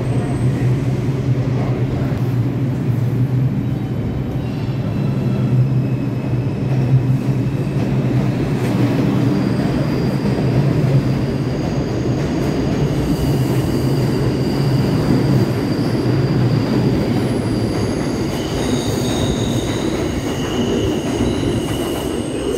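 New York City subway 6 train running along the station platform with a steady low rumble. From about nine seconds in, high steel wheel squeals ring out over it, growing stronger in the last few seconds.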